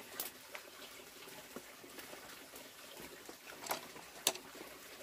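A pot simmering on a small open wood fire, with a few sharp clicks; the loudest comes about four seconds in.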